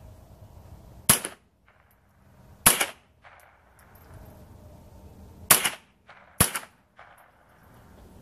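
Four .22 LR rifle shots, sharp cracks fired one at a time at uneven spacing, the last two close together about a second apart.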